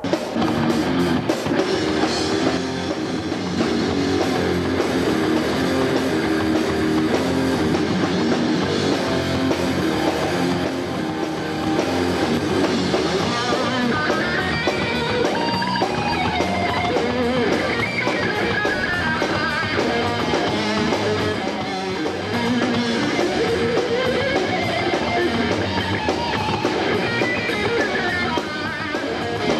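Hard rock band playing: electric guitar and bass over a drum kit. From about halfway a lead line wavers in pitch above the rhythm.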